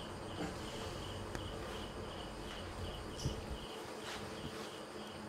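Insect chirping steadily in the background, a short pulsed chirp repeating about two to three times a second, with a few faint soft knocks.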